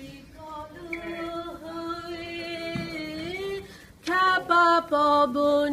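A woman singing a Bengali song unaccompanied. She holds soft, slightly wavering notes at first, then sings louder and fuller from about four seconds in.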